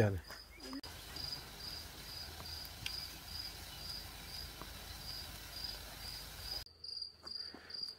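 A cricket chirping steadily, a run of short high chirps at one pitch, about three a second.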